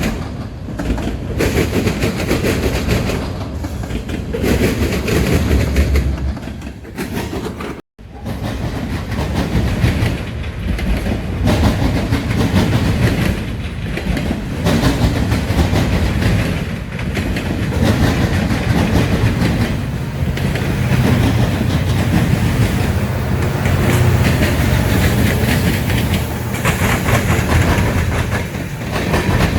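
Freight train cars rolling past, with steady rumble and the clickety-clack of wheels over the rails. The sound drops out for an instant about eight seconds in.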